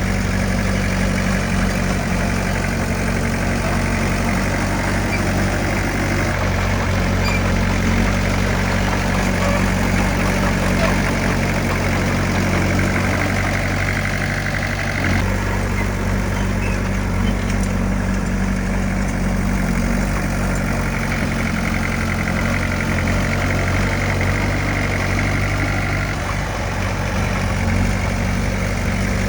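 Diesel engine of heavy earthmoving machinery running steadily, its note shifting about halfway through.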